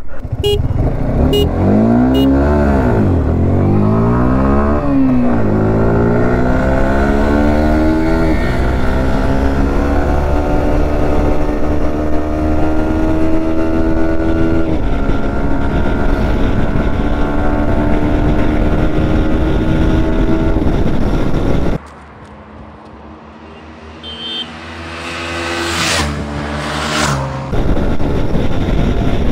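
Yamaha R15 V4 and KTM Duke 250 motorcycles accelerating hard in a drag race, engine pitch climbing and dropping with each upshift, then holding steady at speed. About 22 seconds in the engine sound drops away, then swells again as a bike passes close by near the end.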